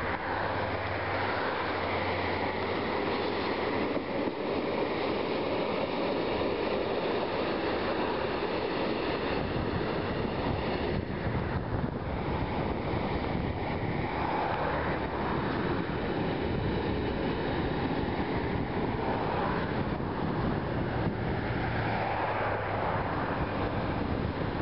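Siemens ES64F4 class 189 electric locomotive passing, followed by a long freight train of container wagons rolling by with a steady noise of wheels on rail. Wind buffets the microphone throughout.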